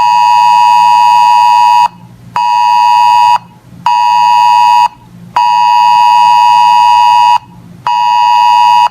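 Weather radio receiver's alert alarm: a loud buzzing beep in a repeating long-short-short pattern, one beep of about two seconds then two of about one second, signalling an incoming weather alert.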